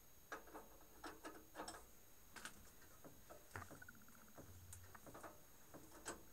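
Near silence broken by scattered faint clicks and taps, about eight of them, from tooling being handled while the face mill is swapped out of a milling machine.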